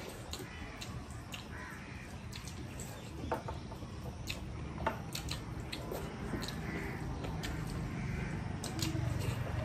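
Hand-eating rice and meat from brass plates: chewing and mouth sounds with scattered small clicks, two of them sharper, about a third and halfway through.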